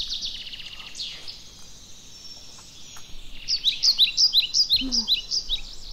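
A songbird singing: a fast high trill in the first second, then a run of quick downward-slurred whistled notes, about four or five a second, in the second half.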